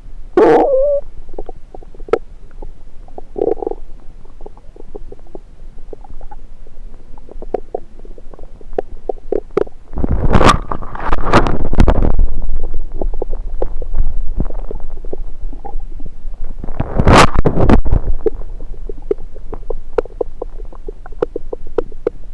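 Human stomach and bowel gurgling picked up through a stethoscope pressed on the belly: scattered small pops and bubbling throughout, a short squeaky gurgle at the very start, and two long, loud rumbling gurgles, one about ten seconds in and another around seventeen seconds.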